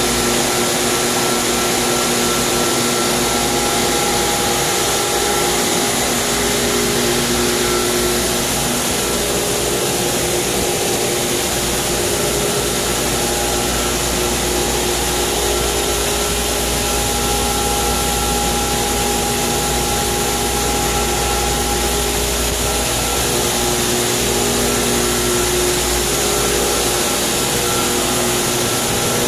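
Pool circulation pump running: a loud, steady motor whir with a few humming tones that fade in and out.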